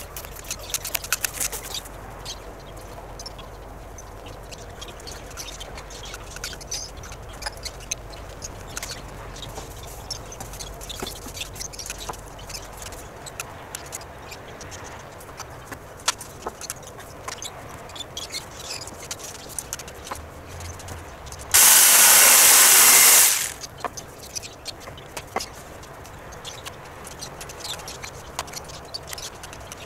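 Scattered knocks and clatter of timber boards and tools being handled. About two-thirds of the way through, a power tool runs in one loud, even burst lasting under two seconds.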